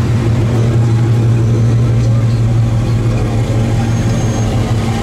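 Classic cars, a red Dodge convertible and then a Chevrolet pickup, rolling slowly past with their engines running in a steady, low drone.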